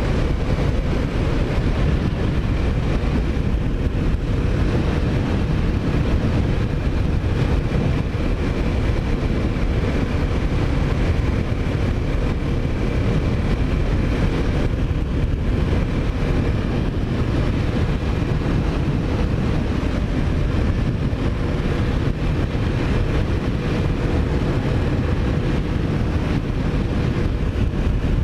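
Kawasaki Ninja 400 parallel-twin engine running at a steady cruise under heavy wind rush on the microphone, with no clear revving or gear changes.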